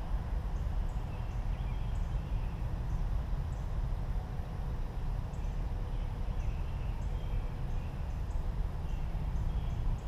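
Outdoor garden ambience: a steady low rumble, with faint birds chirping now and then and short high chips about every second.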